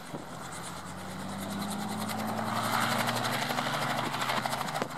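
Robinson R44 helicopter running on the ground: the piston engine's steady hum and the rapid chop of the rotor blades grow louder over the first few seconds as power comes up for lift-off, then hold.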